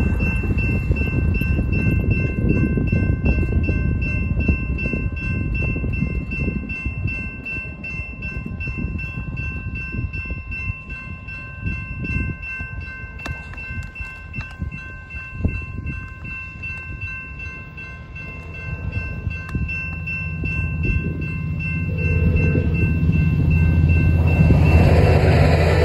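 Railroad crossing warning bell ringing steadily while the gates lower. Near the end, the approaching Amtrak San Joaquins passenger train's diesel locomotive builds to a louder rumble.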